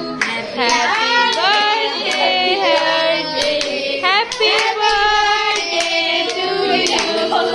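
Several people singing a birthday song together, with steady hand clapping along in time.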